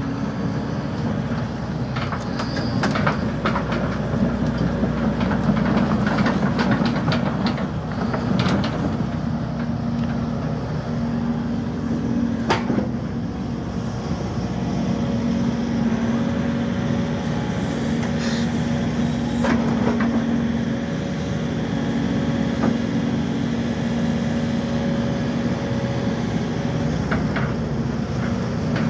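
Case CX130D tracked excavator's diesel engine running at a steady pitch, with sharp metallic clanks and knocks from the machine: a quick run of them over the first several seconds, then single ones now and then.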